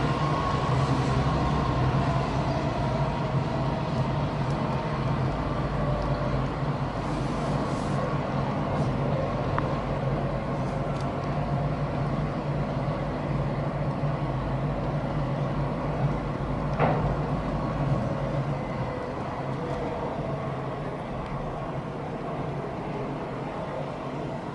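Car engine and tyre noise heard from inside the car as it creeps down a tight curving parking-garage ramp: a steady low hum. A brief sharp sound comes about two-thirds of the way through, and the noise eases a little near the end.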